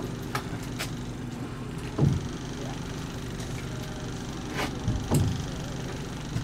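Mercury outboard motor running steadily at trolling speed, with a few dull knocks on the boat, the loudest about two seconds and five seconds in.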